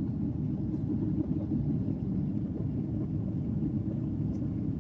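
Airliner cabin noise: a steady, low rumble of engines and airflow heard from inside the passenger cabin.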